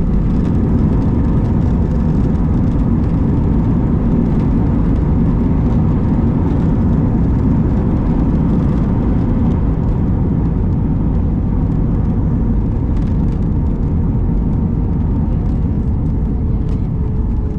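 Airbus A319 airliner heard from inside the passenger cabin during landing: a loud, steady rumble of engines and airflow with a faint hum over it, easing slightly near the end.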